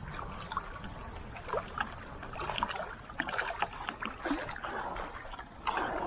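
Choppy lake water splashing and lapping in quick, irregular slaps around a small remote-controlled bait boat as it comes in through the waves, over a low rumble.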